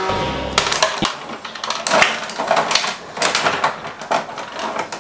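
Rod hockey game in play: rapid, irregular clicking and clattering of the metal control rods and the spinning plastic players knocking against the puck and the board. It starts about half a second in.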